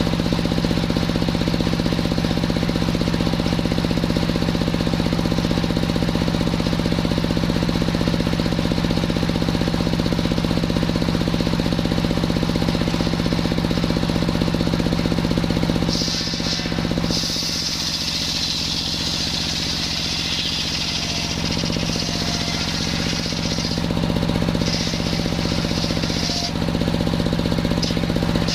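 Engine-driven circular sawmill running steadily with a knocking engine hum. From about halfway through, for some ten seconds, the blade cuts through coconut-palm wood: a high hiss and whine rises over the machine while its low hum drops, then it returns to steady running.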